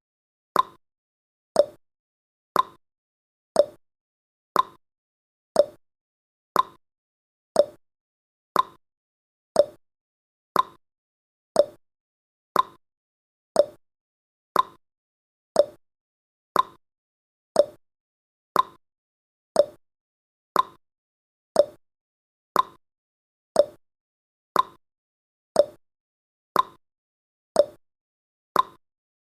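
Countdown timer's clock ticking sound effect: one short click every second, alternating between a higher and a lower tick like a tick-tock.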